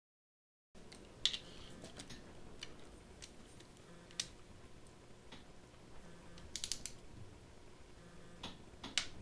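Ratchet wrench on a long socket extension clicking and tapping metal on metal in short, separate clicks, with a quick run of several clicks about two-thirds of the way through. The sound starts abruptly about a second in, over faint workshop room tone.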